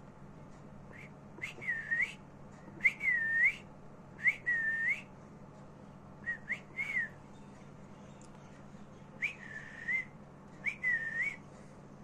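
A series of about six short, clear whistles, each dipping and then rising in pitch, coming in irregular bursts about a second apart, over a low steady hum.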